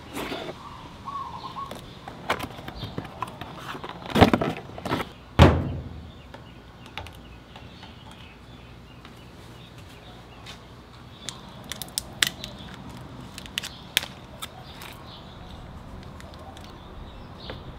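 Clunks and clicks of a scooter battery and its hardware being handled: two heavy knocks about four and five and a half seconds in, then scattered sharp light clicks of charger clamps and terminal bolts later on.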